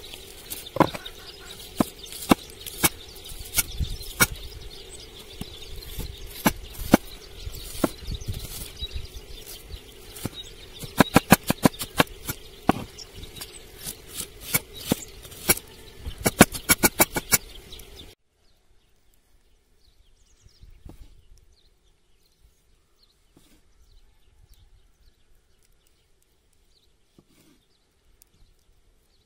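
Kitchen knife slicing an onion on a wooden cutting board: sharp taps of the blade striking the board, irregular at first, then in quick runs of rapid chops. About two-thirds of the way through, the background noise cuts off suddenly and only faint, occasional knife knocks remain.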